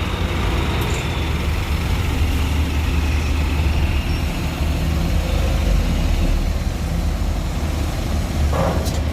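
Large bus diesel engine running close by, a deep steady rumble. A brief burst of sound comes near the end.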